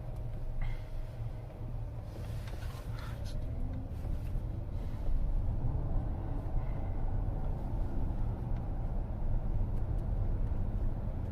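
Steady low road and tyre rumble heard inside the cabin of a car in motion.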